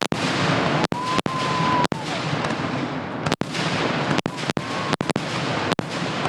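Fireworks show with a dense, continuous barrage of bursts and crackling, and a whistling shell heard for about a second, about a second in. The sound cuts out for an instant many times.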